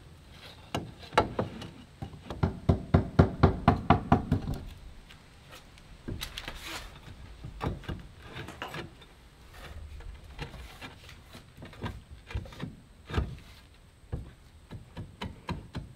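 A rapid run of sharp tapping strikes on a Versetta Stone manufactured-stone siding panel, knocking off the panel's tongue, from about a second in to about four and a half seconds. After that come only scattered, quieter knocks as the panel is set into place.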